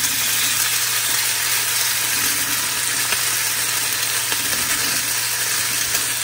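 Military ration beef entrée frying in a hot non-stick pan as it is squeezed out of its pouch: a steady sizzle.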